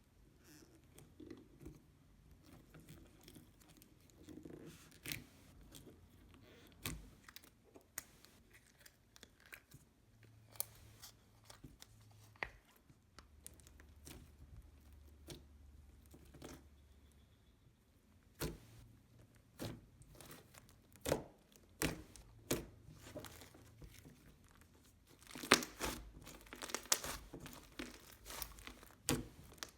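Slime being squished and stretched by hand, giving a string of soft clicks and small bubble pops. The clicks are sparse at first and come thick and fast near the end.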